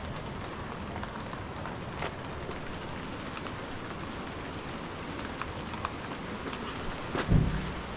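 Steady rain falling, with scattered drops ticking on a surface, and a single dull thump near the end.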